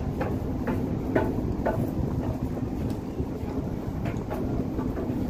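Wind buffeting the microphone over a steady, low ship's engine hum.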